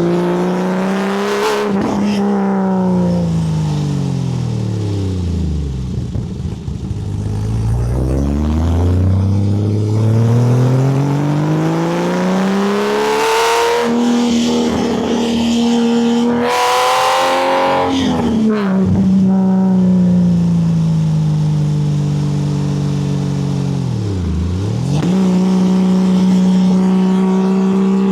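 Porsche 964's air-cooled flat-six through a full custom exhaust, driven hard: the revs sweep down to near idle, climb steadily back up, then hold with short rises and falls, and a quick lift-off dip and recovery near the end.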